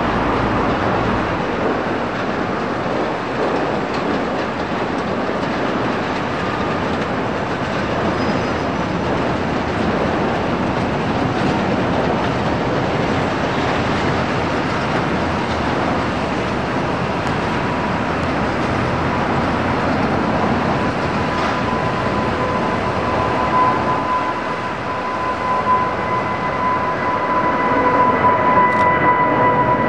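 Jet roar of a Boeing 777's two turbofan engines at takeoff power, steady through the takeoff roll and climb-out. A high, steady fan whine comes in over the second half and grows louder near the end as the aircraft climbs toward the microphone.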